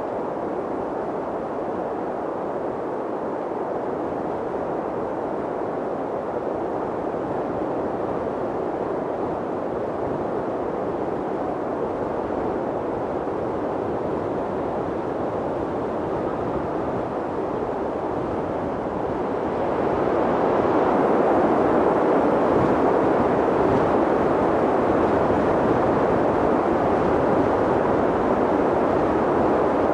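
Wind blowing steadily, a rushing noise that swells and grows louder about twenty seconds in.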